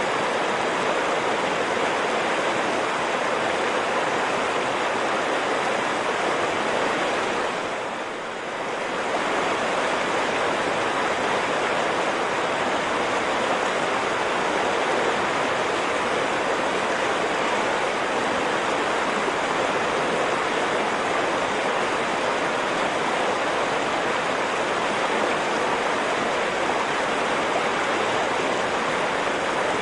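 Continuous rushing water, a flowing stream mixed with ocean waves washing, steady throughout except for a brief dip in level about eight seconds in.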